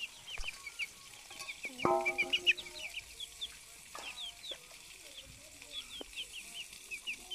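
Young chickens clucking, with a louder drawn-out call about two seconds in, amid many quick high chirps.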